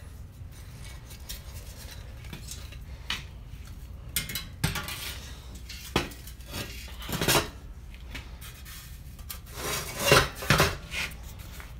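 Metal exhaust expansion chamber being handled and set into place against an engine and steel frame: scattered metallic clanks and knocks with scraping and rubbing between them, a quick cluster of the loudest knocks near the end.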